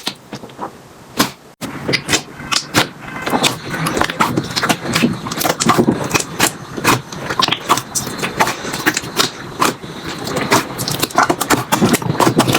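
Slime being squeezed and pressed by hand, making dense, irregular clicking pops and crackles, with a brief break about one and a half seconds in.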